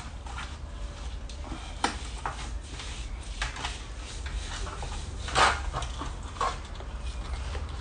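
Gloved hands rubbing dry spice rub into the skin of a whole raw chicken: soft slapping and rustling, with small knocks of the bird against a stainless-steel roasting pan. There is a louder scrape about five and a half seconds in as the chicken is shifted in the pan, all over a low steady hum.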